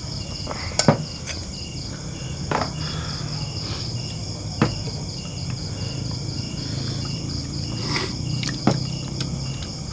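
A night chorus of crickets and other insects, a steady high trilling with a regular pulsing note in it. A few short sharp clicks cut through it, the loudest about a second in.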